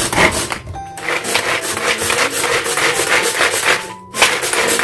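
Hand-pulled cord food chopper worked in quick repeated pulls, its spinning blades rasping and rattling as they mince carrot inside the plastic bowl.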